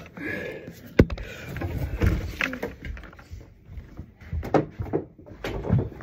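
Handling noise of a phone being moved and set down: several knocks and rustles, with a sharp knock about a second in.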